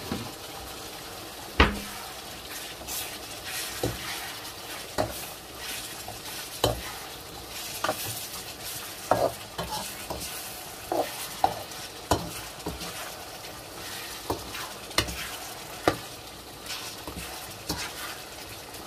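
Beef cubes and onions sizzling as they fry in a wok, stirred with a metal slotted spoon that scrapes and knocks against the pan over and over at an uneven pace.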